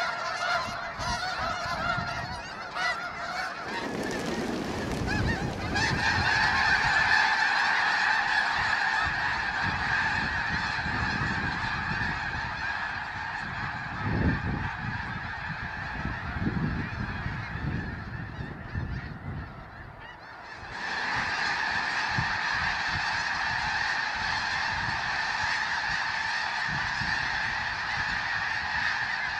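A very large flock of snow geese calling all at once: a dense, steady chorus of high-pitched honks. The chorus thins out a little before two-thirds of the way through, then comes back loud.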